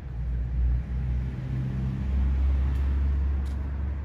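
A motor vehicle passing close by, its engine giving a low rumble that swells and is loudest from about two to three seconds in.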